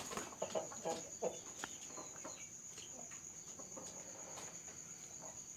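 A chicken giving short, scattered clucks, mostly in the first couple of seconds, over crickets chirping steadily.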